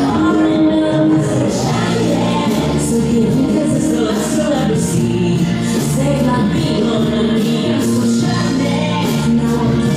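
Recorded pop song playing, with singing over a bass line and a steady beat.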